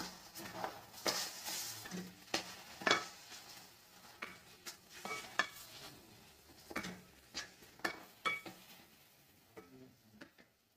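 Spatula stirring diced bottle gourd in an aluminium pressure-cooker pan, scraping and tapping the metal in irregular strokes over a faint sizzle of the vegetables frying in oil. The stirring stops near the end.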